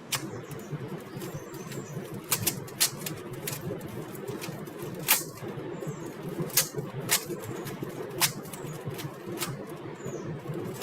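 Rubik's cube being turned fast, its layers clicking and clacking in quick, irregular strokes, some louder than others.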